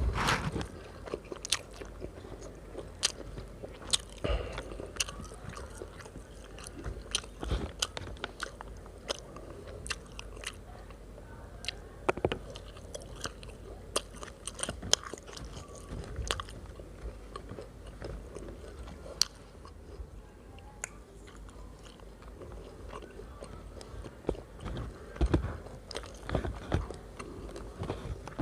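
Close-miked eating of roasted chicken rice: chewing and biting, with many small, irregular crunching clicks.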